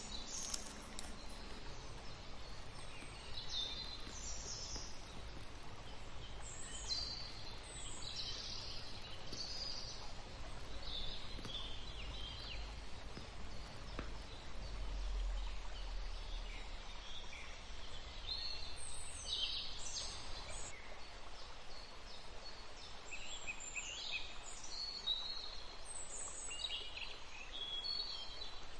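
Birds chirping: short high calls, many of them falling in pitch, coming in scattered clusters over a faint, steady low rumble.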